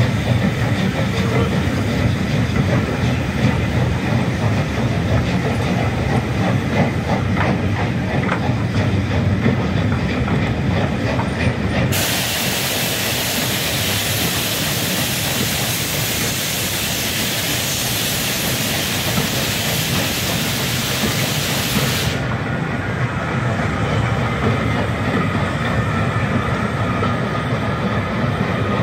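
Steam-hauled passenger coaches rolling past, a low rumble with the wheels clicking over the rail joints. About twelve seconds in a loud steady steam hiss starts, then cuts off suddenly some ten seconds later.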